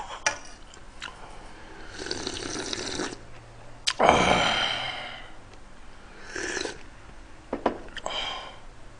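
A man slurping hot broth from a ladle, with bursts of sucking and breathy exhales. The loudest comes a little before halfway: a sharp click, then a long, fading breath.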